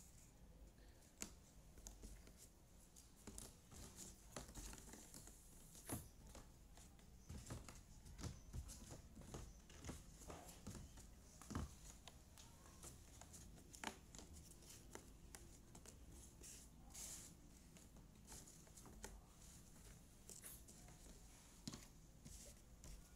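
Faint, irregular clicks and light rustling of small jigsaw puzzle pieces being picked up, slid and set down on a tabletop by hand.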